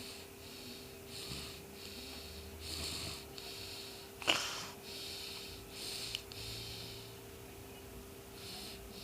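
Cat eating: a run of soft, rhythmic mouth and nose sounds about twice a second, with one sharp click about four seconds in, over a steady electrical hum.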